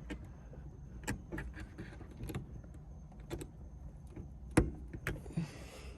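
Scattered small clicks and taps of hands working a car's interior light fitting and bulb, with a sharper knock about four and a half seconds in and a brief rustle near the end.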